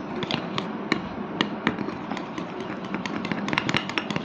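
Glue and borax activator being stirred into slime in a bowl: a quick, irregular run of small clicks and taps, thickening toward the end.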